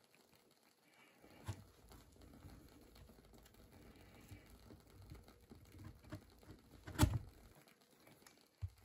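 Soft taps and scrapes of small objects being handled on a table, with a sharper knock about one and a half seconds in and a louder one about seven seconds in.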